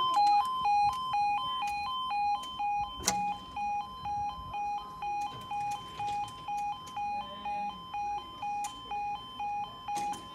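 Level crossing warning alarm sounding as the barriers come down: a two-tone alarm alternating a higher and a lower note, about two pulses a second without a break. A sharp knock about three seconds in, and a few fainter clicks.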